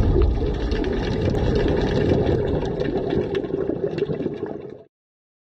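Muffled underwater rushing and bubbling from a scuba diver's exhaled bubbles, with scattered small clicks. It fades and stops just before the end.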